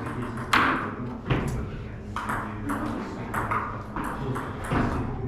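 Table tennis rally: the ball clicking sharply off the bats and the table, several hits roughly every half second to a second, over a murmur of voices in the hall.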